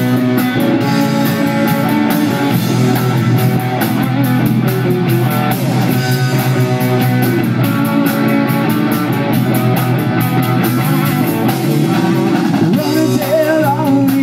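Live rock band playing through amplifiers: electric guitars, bass guitar and drum kit, at a steady level.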